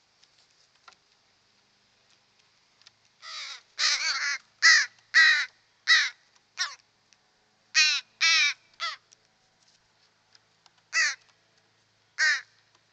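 Crows cawing close to the microphone while competing over food. About three seconds in comes a quick run of about ten caws over some five seconds, followed by two more spaced caws near the end.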